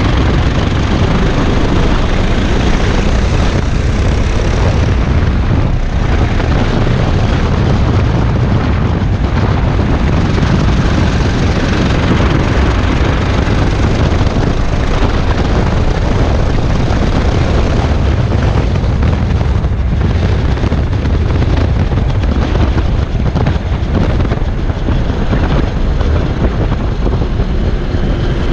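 Go-kart engine running hard at racing speed, heard from a camera on the kart, with wind rushing over the microphone. It is a steady, loud noise with a strong low rumble.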